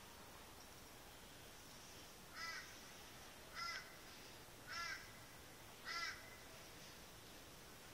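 A bird calling four times, short harsh calls about a second apart.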